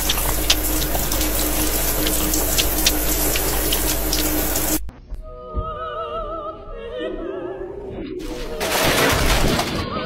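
Water running hard, a steady hiss with a faint hum, cutting off abruptly about five seconds in. Operatic singing with a wide vibrato follows, and a loud burst of noise comes in near the end.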